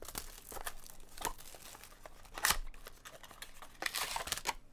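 Clear plastic shrink wrap crinkling and tearing as it is pulled off a trading card box, in irregular crackles with one sharp snap about halfway through. Near the end comes a denser crinkling as a foil-wrapped pack is drawn out of the box.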